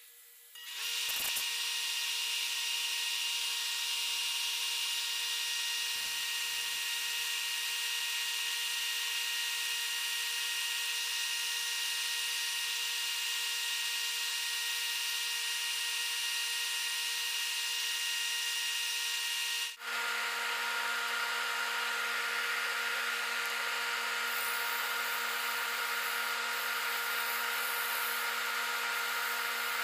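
Wood lathe running with a steady whine over a hiss while a turned wooden vessel is sanded. The sound starts about half a second in, and about twenty seconds in its pitch changes abruptly.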